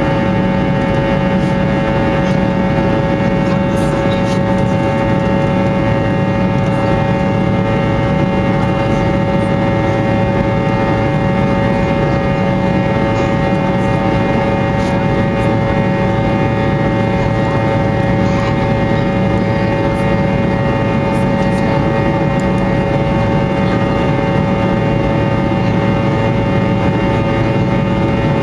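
Fokker 100's tail-mounted Rolls-Royce Tay turbofan engines heard from inside the passenger cabin: a steady rushing drone with a constant whine of fan tones over it, unchanging throughout.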